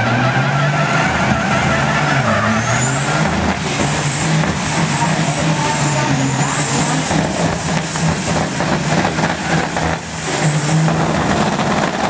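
Semi-truck diesel engines revving hard at the drag-strip start line, with the pitch dipping and rising and a high whistle above. Near the end the engines drop briefly, then pull up again as the trucks launch.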